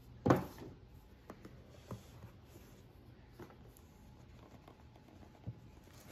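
A cardboard collector's box being handled: one sharp knock near the start, then a few faint taps and scuffs of card as the lid comes off and the black inner tray is lifted out.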